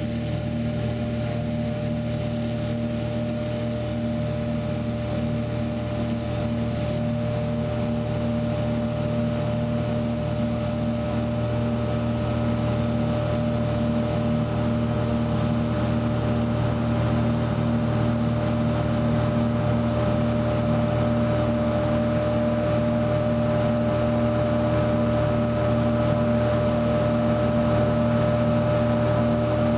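Light aircraft's piston engine and propeller droning steadily in cruise, heard from inside the cabin, with a constant whine and rushing air noise, slightly louder towards the end.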